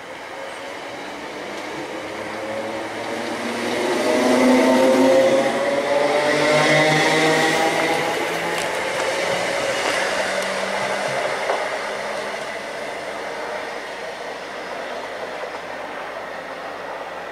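Class 318 electric multiple unit pulling away and accelerating past. Its motor whine rises in pitch as it gathers speed, loudest about four to seven seconds in, then fades as it draws away.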